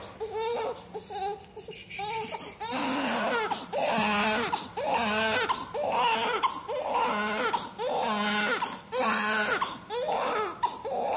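Newborn baby crying: a few quieter whimpers, then short loud wails repeating about once a second. She is hungry.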